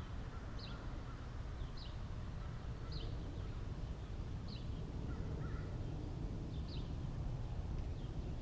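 Birds calling outdoors: a short, high falling note repeats about once a second, with a few fainter lower chirps, over a low steady background rumble.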